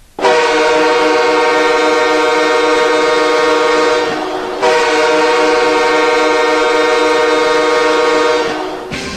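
NHL arena goal horn sounding two long, steady blasts of about four seconds each, with a short break about four seconds in; the second blast fades out near the end.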